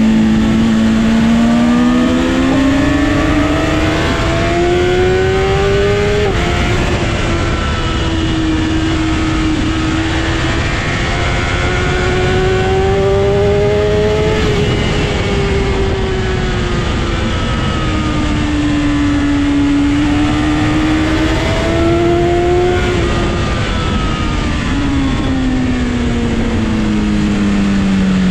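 Sport motorcycle engine heard from the rider's seat, its pitch rising and falling as it accelerates and eases off through a series of corners, with a gear change about six seconds in. Steady wind rush runs underneath.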